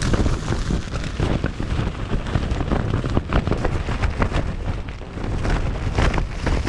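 Very strong wind battering the microphone in a loud, continuous rumble, with many sharp irregular flaps and hits through it.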